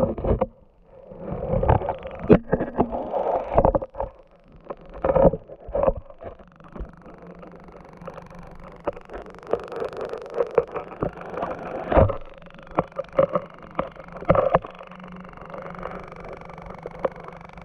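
Water sloshing with irregular knocks and thumps, loudest and busiest in the first six seconds, then scattered faint ticks.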